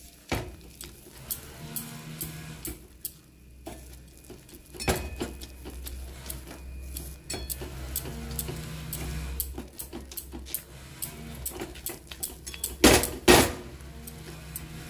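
Metal spoon scraping and clicking against a metal pot as boiled red lentils (masoor dal) are mashed, with two loud knocks of the spoon on the pot about thirteen seconds in.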